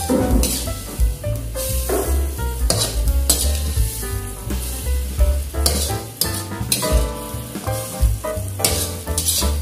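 Spatula scraping and stirring in an aluminium wok as stir-fried vegetables are scooped out onto a plate, a series of short scrapes, with the food still sizzling in the hot pan. Background music with a steady bass line plays underneath.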